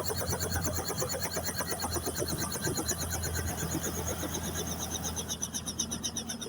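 Helicopter running steadily: a constant low hum under a rapid, even pulsing from the rotor and turbine.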